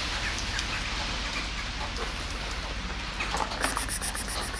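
Steady rain falling on concrete and pavement, an even hiss with a few scattered drips.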